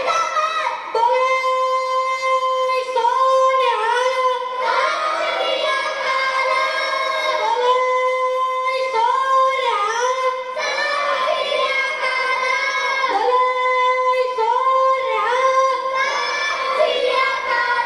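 Children singing, with long held notes that bend at their ends, in repeating phrases; heard through a television's speaker.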